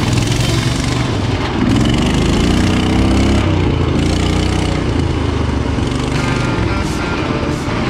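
Riding lawn mower engine of an off-road mud mower running hard on a trail. It revs up about a second and a half in, then eases off a couple of seconds later.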